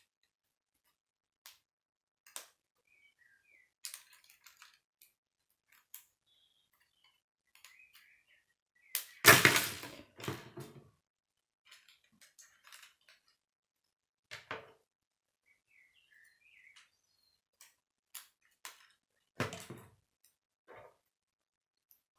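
Plastic K'nex pieces clicking and rattling as they are handled and snapped together, with scattered light clicks and a louder clatter about nine to eleven seconds in and again near twenty seconds.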